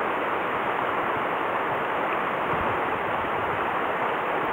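Shallow, rocky mountain stream running over stones: a steady rushing of water.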